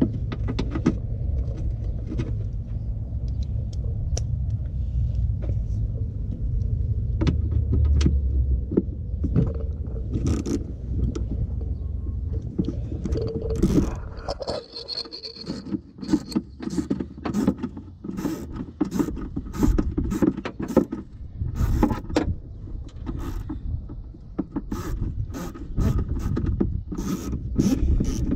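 Hands handling parts in a car's empty headlight opening: repeated short clicks, knocks and scrapes that come thicker from about halfway through. A low rumble underlies the first half.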